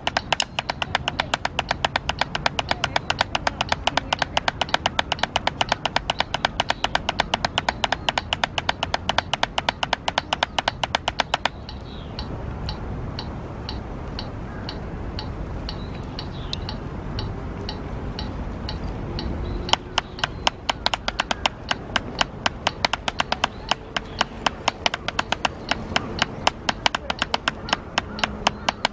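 Drumsticks striking a drum practice pad in fast, even strokes. The strokes stop about twelve seconds in, leaving a metronome ticking about twice a second, and resume about twenty seconds in.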